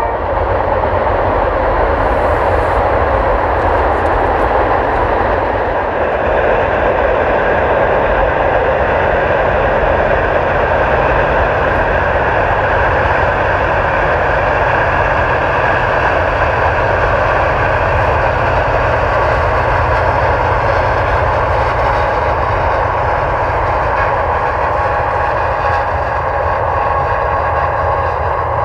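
Freight train rolling past: a steady, loud roar of steel wheels on rail and moving freight cars, with a mid-train distributed-power locomotive passing among the cars.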